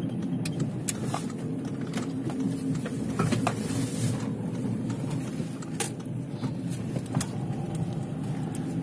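Volkswagen T5 Transporter's turbodiesel engine and road noise heard inside the cab while driving, a steady low hum with a few short knocks and rattles over the road.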